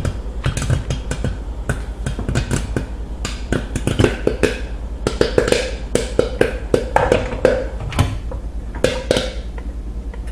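Kettle corn kernels popping in a covered pot of hot oil: many sharp pops at an irregular pace, several a second, over a steady low hum.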